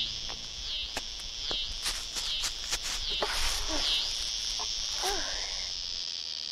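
A high, steady chorus of insects chirring, swelling and dipping a little more than once a second. Over it come scattered sharp knocks and rustles as a shrub's root ball is dug out and heaved into a wooden wheelbarrow.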